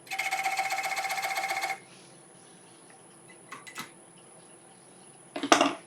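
Steel divider points chattering against the spinning cypress bowl blank as a recess is scribed: a rapid, ringing rattle lasting under two seconds. Two light clicks follow, then a sharp clack near the end.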